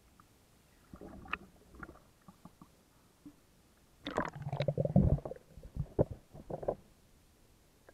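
Bathwater sloshing and splashing in a filled tub as a person moves about in a soaked fake fur coat: a few short splashes about a second in, a louder stretch of sloshing and gurgling a little past the middle, then a few separate knocks.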